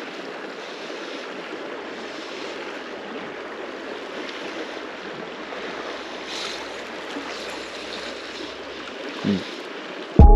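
Steady rush of the South Platte River's fast water running over rocks, with a brief low thump about nine seconds in. Music cuts in loudly at the very end.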